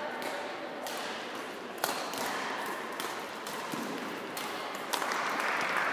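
Badminton rackets striking a shuttlecock during a rally: a few sharp, crisp hits one to three seconds apart in a large hall, the loudest about five seconds in. The hall's background noise grows louder near the end.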